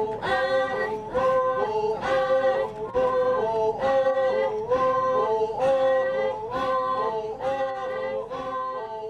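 Unaccompanied voices singing a traditional Naga chant: short held notes that step up and down in a steady, repeating rhythm.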